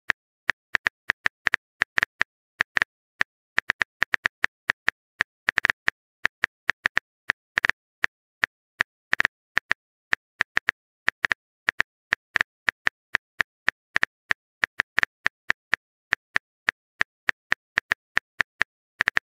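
Phone keyboard typing sound effect: a long, uneven patter of short click-taps, about four a second, as a text message is typed out.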